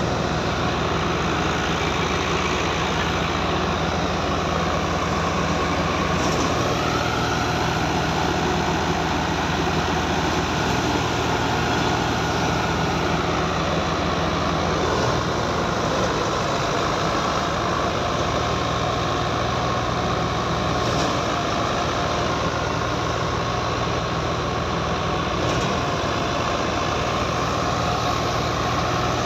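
Tractor-driven wheat thresher running: the tractor engine and the belt-driven threshing drum make a steady, loud mechanical din with a low hum. Over it is a high whine that drops in pitch a few seconds in and climbs back several seconds later.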